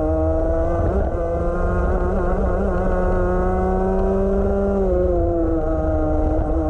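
Rotax 125 Max Evo single-cylinder two-stroke kart engine pulling hard, its pitch climbing steadily for about five seconds as the kart gains speed. It then drops sharply as the throttle is lifted for a corner, and holds at a lower pitch. Heard from on board the kart.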